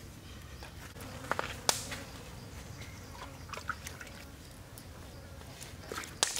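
Wood fire burning under a steel wok, with a few sharp cracks and snaps: two about a second and a half in and one near the end.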